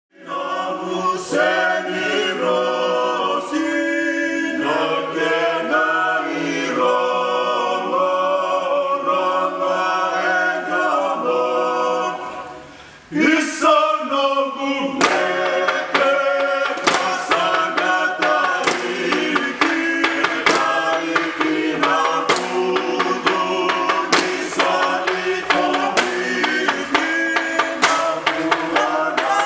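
A group of voices singing a traditional Fijian chant in harmony, a cappella. There is a short break about 12 seconds in, and after it the singing carries on over sharp, evenly spaced beats.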